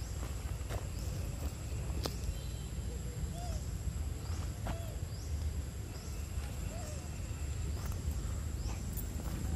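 Outdoor ambience: a steady high insect drone with short high chirps repeating every second or so, over a constant low rumble. A few faint warbling calls and a couple of sharp ticks.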